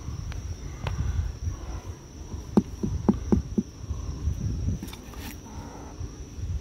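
Steady high-pitched insect drone, over low rumbling, with a quick run of five sharp clicks about two and a half seconds in.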